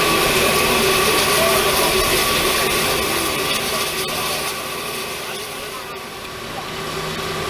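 Peppercorn A1 steam locomotive 60163 Tornado standing in steam, giving a steady hiss with a low hum. The sound fades down about five seconds in and comes back up near the end.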